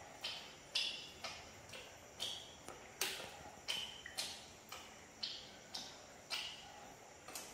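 Regular sharp ticks, about two a second, each dying away quickly, some with a brief high ring.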